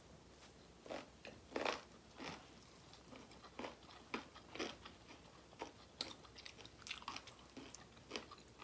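Close-up eating sounds: chewing and biting of food, with irregular crisp crunches a few times a second, the sharpest about two seconds in and again about six seconds in.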